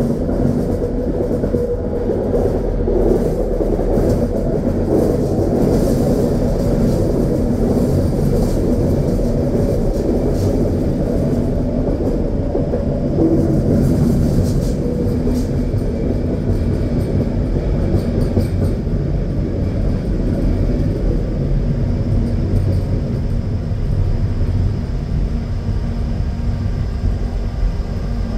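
A SkyTrain car running along its guideway, heard from inside: a steady rumble of the wheels on the rails and the running gear that carries on unbroken. A steady low hum comes in near the end.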